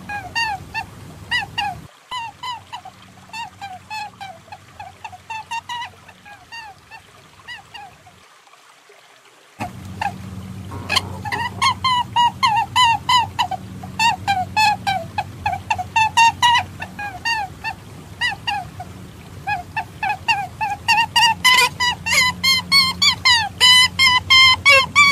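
Lure recording for perentie monitor lizards: rapid, repeated squawking calls, several a second, each a short downward slide. The calls thin out and briefly drop away a few seconds in, then come back louder and denser toward the end.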